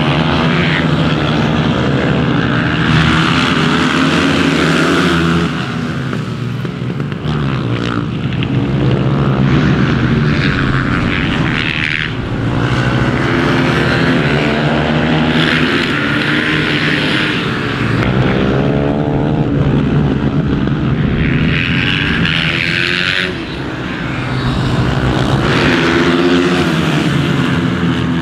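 Several supermoto race motorcycles passing at racing speed, their engines revving up and down as they brake and accelerate through corners, with several engines overlapping. The sound swells and fades as groups of bikes come by.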